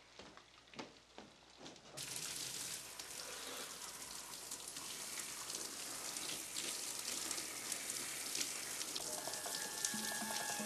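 Shower spray hissing steadily onto a person and the tiled stall, starting suddenly about two seconds in after a few faint knocks; music tones come in near the end.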